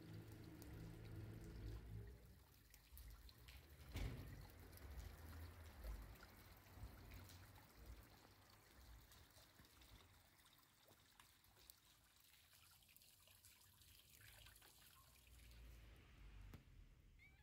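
Near silence: a faint trickle of water from a small stone water basin, over a low rumble, with a single soft knock about four seconds in.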